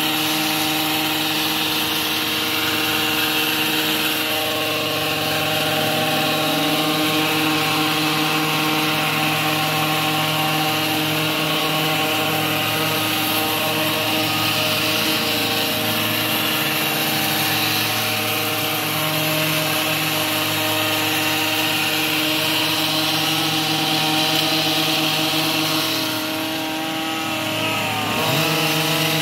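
Gas-powered hedge trimmer running steadily at high speed while cutting boxwood. Near the end the engine eases off briefly, its pitch dropping, then speeds up again.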